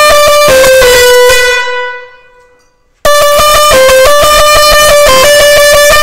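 Multi-trumpet musical pressure horn playing a Punjabi tune, its trumpets sounding one note after another in quick steps. The tune breaks off about a second and a half in, dies away, and starts again about three seconds in.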